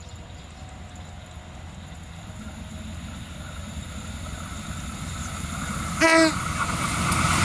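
A diesel locomotive hauling passenger coaches approaches, its low rumble growing steadily louder. About six seconds in it gives one short horn blast.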